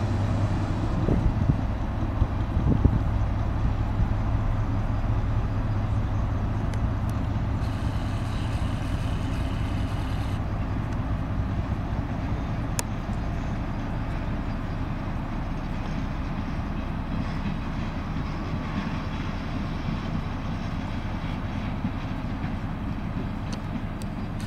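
SNCF BB 69400-class diesel locomotives passing with the Mauzin track-recording car: a steady low diesel engine drone, with a few sharp knocks about one to three seconds in, slowly getting fainter as the train draws away.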